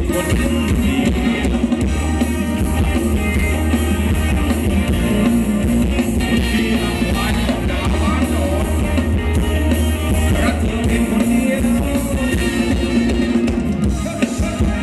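Live Thai ramwong band music: a drum kit keeping a steady dance beat under a sung vocal line, loud and continuous.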